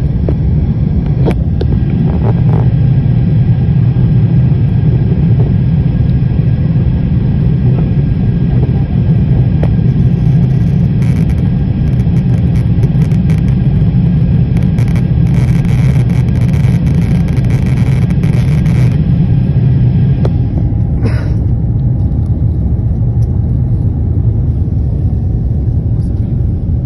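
Airliner cabin noise in the climb after takeoff: a steady, loud low rumble of the jet engines and rushing air, with a few faint steady tones above it. A couple of faint clicks come in the first few seconds, and a short hiss about three-quarters of the way through.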